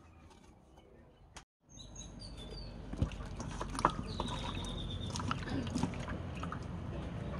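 Rural outdoor background with birds chirping and scattered knocks and clicks. It cuts to silence for an instant about a second and a half in and comes back louder.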